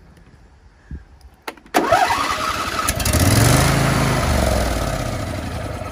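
John Deere LA120 lawn tractor's Briggs & Stratton engine turned over on the starter after a couple of clicks, catching about three seconds in on gas poured into the carburetor, then slowing and fading away. It won't idle, a sign the owner reads as a dirty carburetor.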